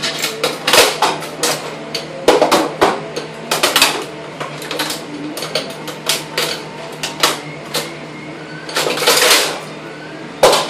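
Plastic and metal parts of an old printer knocking, clicking and snapping irregularly as it is pulled apart by hand, with a longer scrape near the end.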